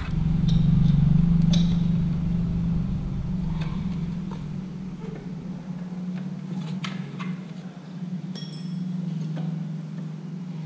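A steady low hum runs throughout, with a few light metallic clicks of an Allen key working on the rear brake caliper's pad pin.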